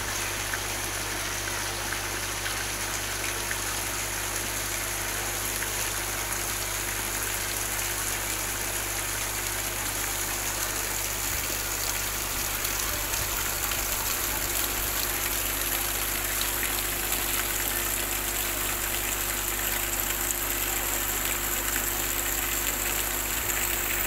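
Steady heavy rain falling, an even hiss that grows a little louder in the second half.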